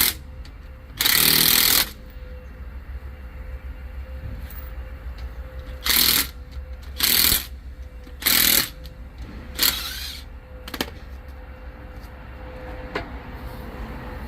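Pneumatic impact wrench fired in short bursts, about six times, as it runs in the fasteners of a car wheel being refitted. The longest burst comes about a second in. A couple of short sharp clicks follow later on.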